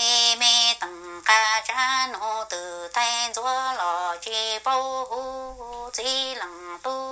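A woman singing solo and unaccompanied in Hmong, in short phrases of long held notes that step between pitches, with brief breaks between phrases.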